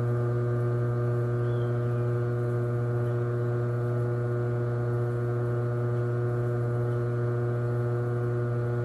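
Electric potter's wheel motor running at a constant speed with a steady rumbling hum while clay is thrown on the spinning wheel head.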